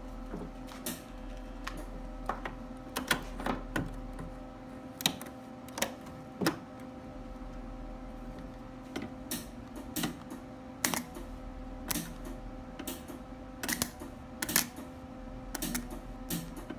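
Irregular sharp clicks and taps, a few each second with short pauses, over a steady electrical hum.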